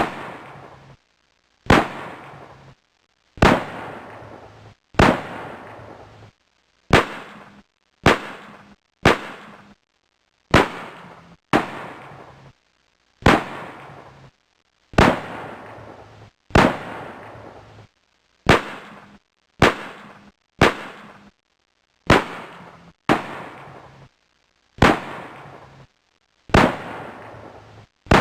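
Gunshot sound effect: single shots repeated roughly every one to two seconds. Each is a sharp crack with a short echoing tail that cuts off to silence before the next.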